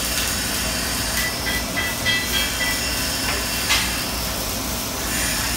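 TIG welding arc hissing steadily over a low electrical hum, with a sharp click about three and a half seconds in.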